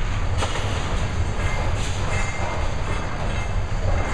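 Heavy demolition machinery working on a building: a steady low rumble with a few sharp clanks of debris.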